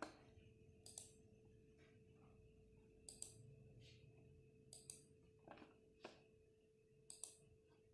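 Near silence: room tone with a faint steady hum and a scattering of faint, short clicks, some in quick pairs.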